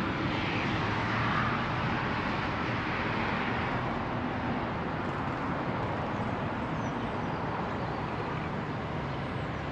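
Steady rushing noise of road traffic, swelling slightly in the first few seconds.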